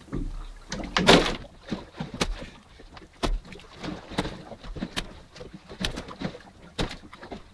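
Irregular knocks and splashes of water around a small boat, with one louder splash about a second in.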